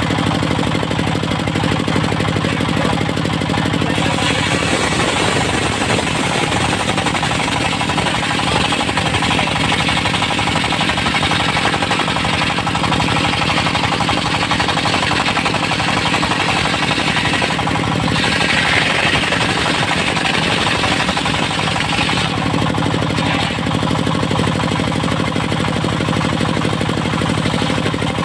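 Engine of a portable circular sawmill running steadily. The saw blade cuts through a mindi log starting a few seconds in, gets louder toward the end of the cut, and stops several seconds before the end.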